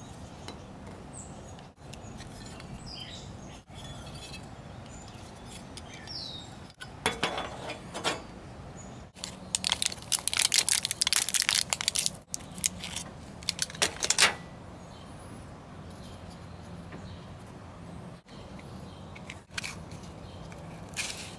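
Handling a ration heating kit: crinkling of the foil blister pack of solid fuel tablets, in dense bursts loudest about ten seconds in, with light clinks from the folding metal stove. Faint bird chirps early on.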